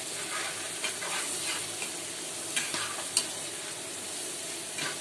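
Sliced onions and spice paste sizzling in hot oil in a pan while a spatula stirs them. The spatula clicks sharply against the pan a few times in the second half.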